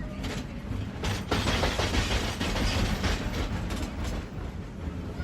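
San Francisco cable car rolling along its track: a steady low rumble with irregular clatter from the wheels and car, one heavier clack just after a second in.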